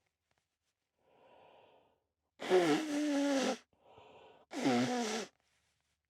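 A man sneezing twice in a sneezing fit brought on by Chhinkni sneezing powder. Each voiced, drawn-out sneeze comes after a faint quick in-breath, the first about two and a half seconds in and the second about two seconds later.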